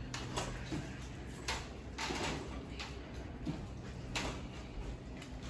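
Scattered knocks, bumps and scrapes of a loaded luggage cart being wheeled in through a hotel room door, several in the first few seconds and another about four seconds in, over a low steady room hum.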